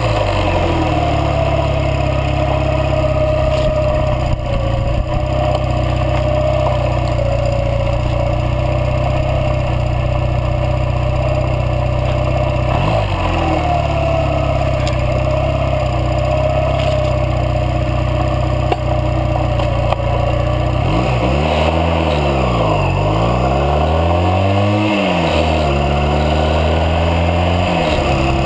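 Motorcycle engine running at road speed under a steady rush of wind noise. The engine note drops quickly near the start and again about 13 seconds in, then from about 21 seconds it falls and climbs twice as the throttle is rolled off and back on.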